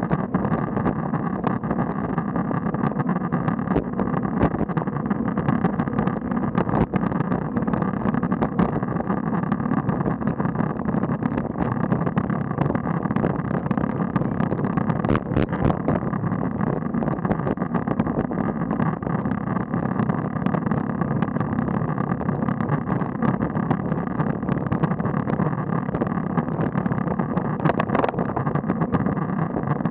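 Steady muffled rush of riding noise on a road bike's action camera: tyres on tarmac and moving air, with scattered small clicks.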